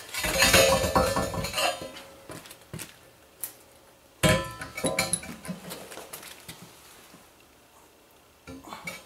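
Steel pedestal stand's square base plate clattering and scraping on a concrete floor as it is set down and shifted into position, with one sharp metallic clank about four seconds in that rings briefly, then a few lighter knocks.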